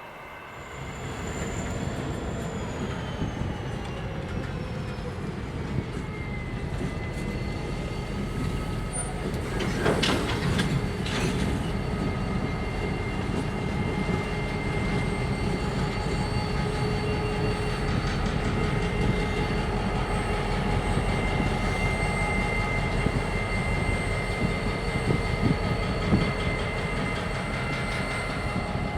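Freight train cars rolling past with a steady rumble and high steady squealing from the wheels. A tone falls in pitch over the first few seconds, and there is a short cluster of metallic clanks about ten seconds in.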